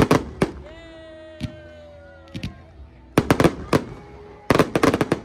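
Fireworks going off as sharp cracking bangs: a few at the start, single bangs spaced out, then two rapid volleys in the second half.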